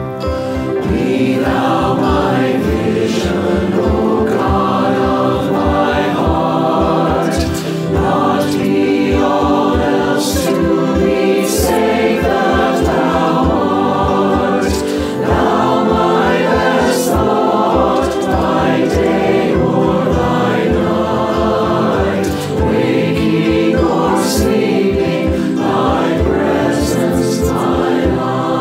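Mixed choir of men's and women's voices singing a hymn in unison, over instrumental accompaniment with a steady low drum beat.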